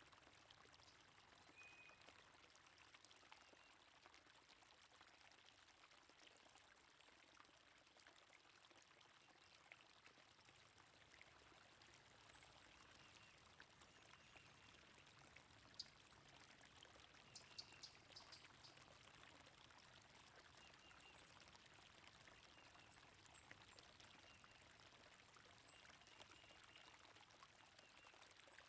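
Faint, steady flowing water of a stream, with small birds chirping briefly now and then.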